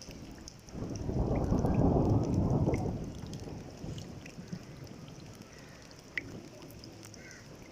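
A roll of thunder rumbling for about two seconds, swelling just under a second in and dying away, over steady monsoon rain with scattered drips.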